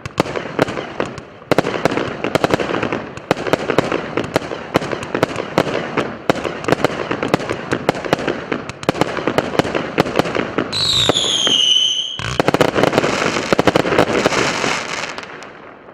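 Consumer fireworks salute (multi-shot cake) firing, with a rapid run of launches, bangs and crackling bursts. About two-thirds of the way through, a loud whistle falls in pitch for just over a second. The crackling then picks up again and dies away at the end as the salute finishes.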